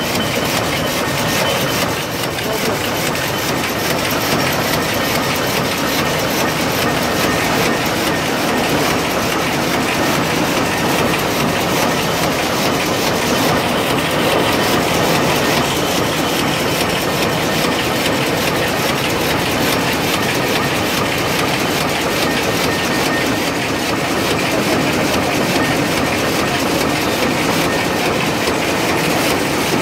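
Rapier loom with electronic jacquard running at speed: a loud, steady, rapid mechanical clatter of the weaving action.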